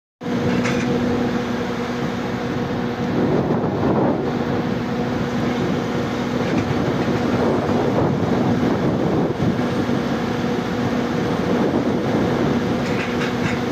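Caterpillar hydraulic excavator running steadily, a constant hum with a steady whine over it. It grows louder for a moment a few seconds in and again past the middle, as the machine works.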